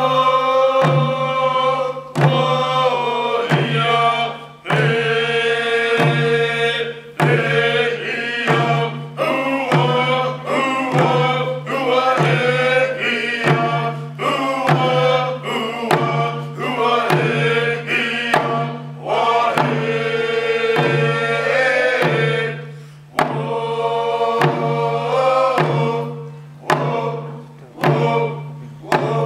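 A group of voices sings a Native song in unison to a steady hand-drum beat, with about one stroke a second.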